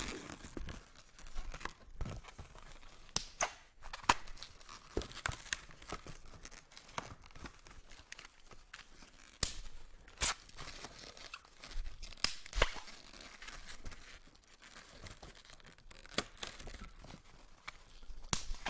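Inflated latex twisting balloons being handled: a brown 260 balloon being wrapped and knotted around a yellow balloon disc, giving scattered short rubbing and tapping noises as the balloons rub against each other and the table.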